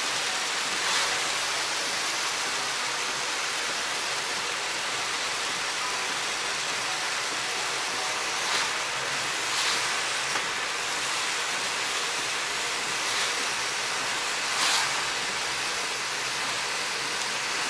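Heavy rain on a car's windscreen and body, with tyres hissing on the wet road, heard from inside the cabin while driving: a steady hiss with a few brief swells.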